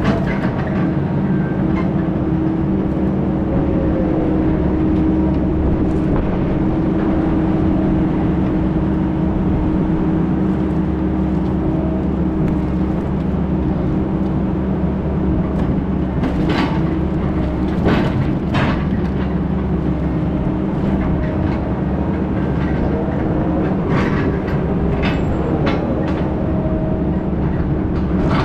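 Heavy diesel engine running steadily under load, with a few sharp rattles and knocks from the machine's body partway through.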